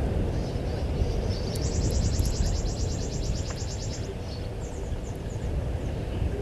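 A steady low rumble of noise, with an insect's high, rapidly pulsing trill of about ten pulses a second that starts about one and a half seconds in and stops some two and a half seconds later. A few faint high chirps follow.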